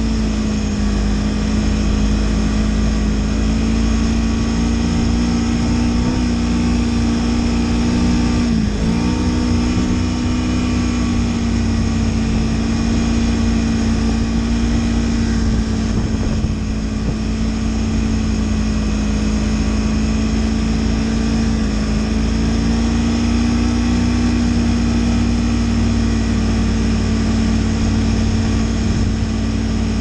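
Snowmobile engine running at a steady cruising pitch while the machine is ridden, heard from the rider's seat. The pitch dips briefly and picks back up about nine seconds in, with smaller dips later, over a constant low rumble.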